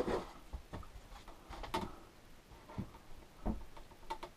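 About five light knocks and taps at uneven intervals; the first is the loudest.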